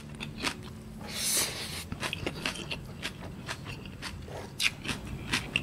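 Close-miked eating sounds: a mouthful of rice and raw vegetables being chewed, with many wet clicks and crunches and a short hiss about a second in. A faint steady hum lies underneath.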